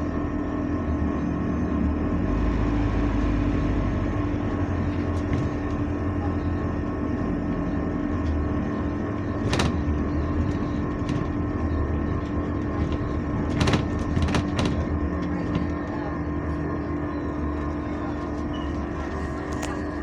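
Interior noise of a moving bus: a low engine and road rumble under a steady droning hum that holds one pitch throughout, the loud noise inside the bus. A sharp rattle comes about halfway through, and a few more follow a few seconds later.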